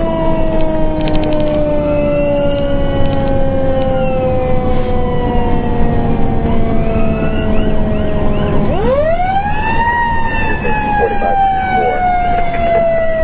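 Pierce Enforcer fire engine's siren wailing, heard from inside the cab over a low engine and road rumble. Its pitch falls slowly, winds sharply back up about nine seconds in, then starts to fall again.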